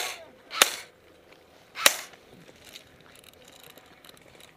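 Airsoft rifle firing three single shots, sharp cracks in the first two seconds, the last about a second after the second; after that only faint ticks and rustling.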